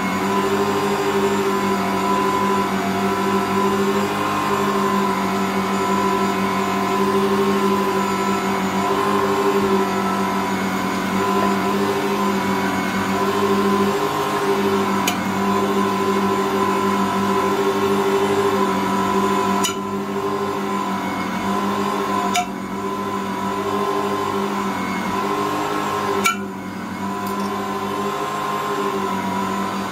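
Ankarsrum 6230 stand mixer running steadily while kneading bread dough, a constant motor hum. A few sharp clicks come in the second half.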